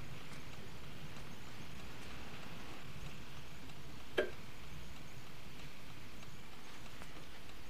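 Faint steady low room hum, broken about four seconds in by the single sharp click of a light switch as the bathroom light comes on.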